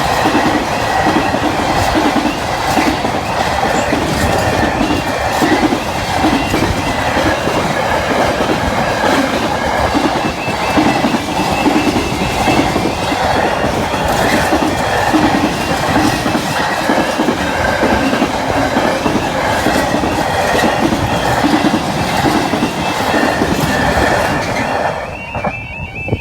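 Long intermodal container freight train rolling past at speed behind a Class 66 diesel, its wagon wheels clattering steadily over the rail joints. The train sound cuts away about a second before the end.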